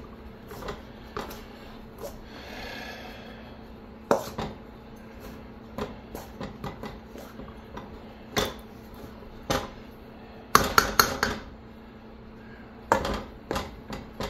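Stainless steel mixing bowl clanking and knocking on the stove as biscuit dough is worked by hand in it: scattered sharp metallic knocks, with a quick run of several near the end.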